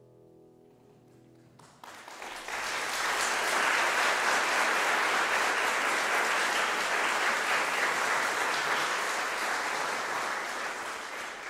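The last chord of a grand piano dies away, and a little under two seconds in an audience breaks into applause that swells quickly and holds steady, thinning near the end.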